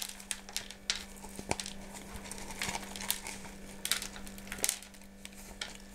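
Irregular soft crackling and rustling of hands handling a Phalaenopsis orchid's roots and old potting moss, with scattered small clicks.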